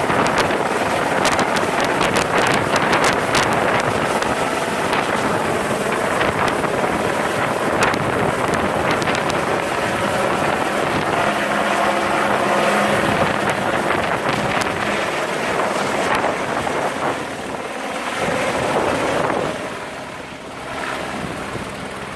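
Helicopter rotor and engine noise mixed with heavy wind buffeting on the microphone, dropping in level near the end.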